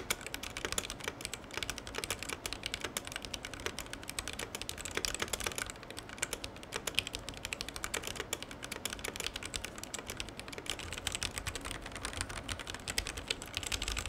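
Fast, continuous typing on a Ducky Year of the Rat mechanical keyboard fitted with JWK Alpaca linear switches: a steady stream of quick key clacks.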